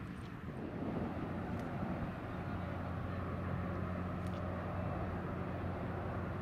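Steady low hum of a ship's machinery at the pier, over a rushing outdoor background, the hum growing stronger about two seconds in.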